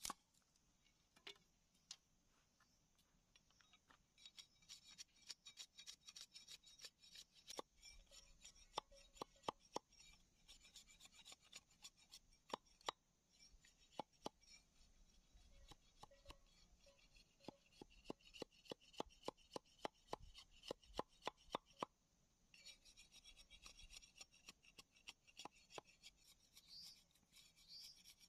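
A machete chopping and shaving a bamboo stick against a wooden log: many quick, sharp blade strikes with scraping between them, thickest through the middle of the stretch.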